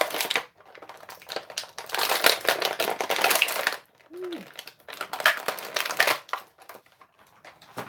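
Plastic packaging of a boxed Marvel Legends Thor action figure crinkling and crackling loudly in irregular bursts as the figure is pulled out, heaviest about two to four seconds in.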